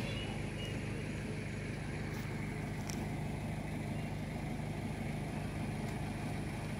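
A motor vehicle engine idling: a steady low hum with no change in pitch.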